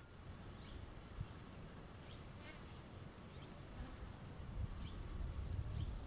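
Steady high-pitched chorus of crickets or similar insects, with a few faint short chirps and some low rumble rising near the end.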